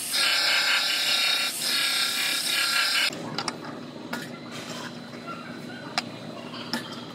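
Narrow belt sander grinding on the steel door post, a high-pitched whine over rough grinding that dips briefly partway and stops about three seconds in. A few sharp clicks follow.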